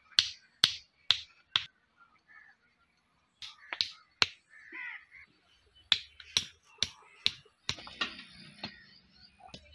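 A hammer knocking short red clay-brick stakes into dry dirt. Sharp knocks come in runs of three or four, about two a second, with pauses between the runs.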